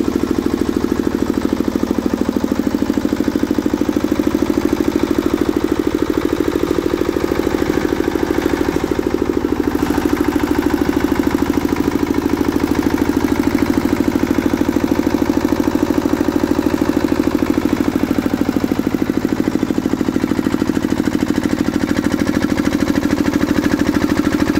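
Field Marshal 10 hp single-cylinder, air-cooled diesel engine of a 7.5 kVA generator set running steadily at constant speed, with an even, rapid beat.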